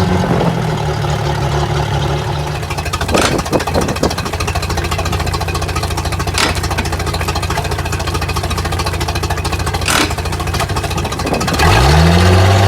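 Mercury 4.3 Vortec V6 boat engine idling with a rapid, even pulse, with a few sharp clicks over it, then revving up about a second before the end.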